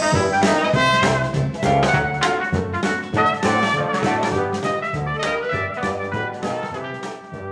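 Background music: a jazz tune with brass and drums, gradually getting quieter toward the end as it fades out.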